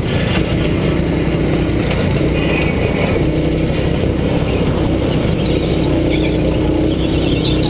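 A go-kart's small engine running steadily at speed, heard up close from the kart itself.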